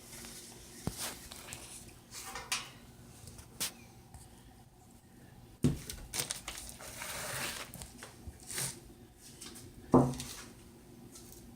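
Kitchen handling sounds: rustling and scattered clicks and knocks of dishes and utensils, with two louder knocks about six and ten seconds in.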